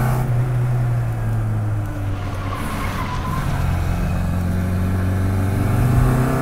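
Classic Mini's 998 cc A-series four-cylinder engine running under way, loud and buzzy; its pitch drops about two seconds in and climbs again near the end as the revs build.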